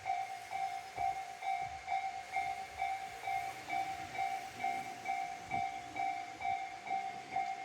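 Tobu Railway level-crossing electronic warning bell, the Tobu 'sound C' type, ringing steadily with evenly spaced ding strikes, a little over two a second.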